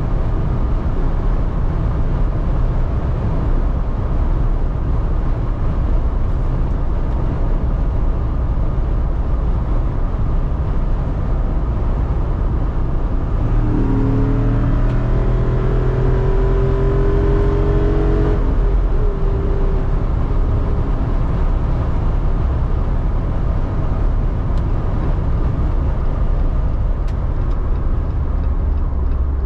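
The Jeep Wrangler Rubicon 392's 6.4-litre HEMI V8 running steadily under a constant low drone of engine and road noise. About halfway through, the engine note comes up and rises for about five seconds as it accelerates, then drops back into the drone.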